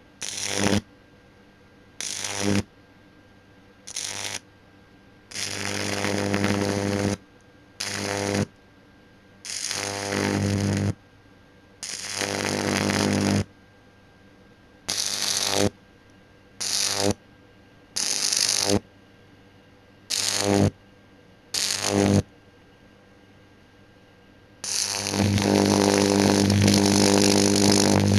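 High-voltage arc from microwave oven transformers buzzing and sizzling in about a dozen abrupt on-off bursts, with a long, steady burst near the end.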